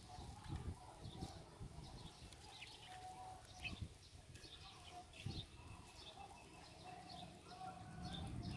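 Faint outdoor background: scattered short high chirps, like distant birds, over a faint wavering hum, with a few soft low knocks.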